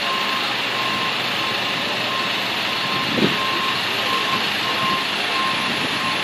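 Backup alarm of a reversing semi-trailer truck, a steady run of single-pitched beeps at about two a second over steady truck and outdoor noise, with a brief knock about halfway through.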